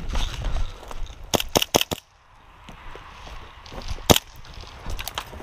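Airsoft guns firing: a quick run of four sharp cracks about a second and a half in, then a single louder crack near the end.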